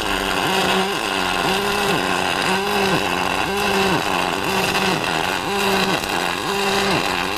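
Pulse MIG welder running a double-pulse stitch weld on aluminium: a continuous crackling, hissing arc with a buzz that steps up and down in pitch in a steady rhythm, about twice a second.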